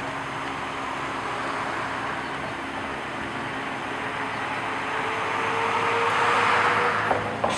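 Motor vehicle engine running with a steady hum. It grows louder about six seconds in, with a faint rising tone, and a short sharp click comes near the end.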